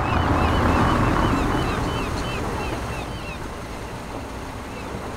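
Outdoor ambience: a broad rushing noise that swells in the first couple of seconds and then fades, with a run of short, high chirps during the first half.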